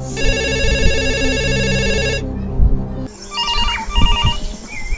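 Telephone ringing: a trilling ring about two seconds long, then, after a short pause, two shorter trilled rings.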